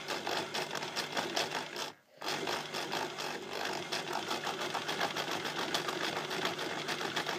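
Domestic sewing machine doing free-motion embroidery, its needle stitching in a fast, even run over a steady motor hum. It stops for a moment about two seconds in, then runs on at the same speed.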